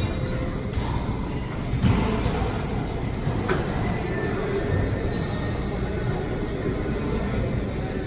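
Wallyball play in an enclosed racquetball court: several sharp hits of the ball echoing off the walls over a steady low rumble of the court.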